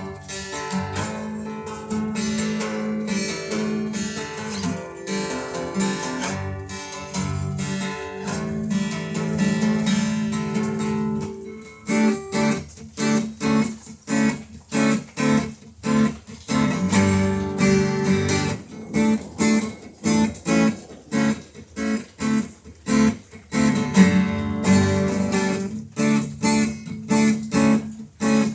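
Acoustic guitar, which the player takes for some kind of 12-string instrument, strummed in ringing chords. About halfway through it changes to short choppy strokes, about two a second, with brief gaps between them.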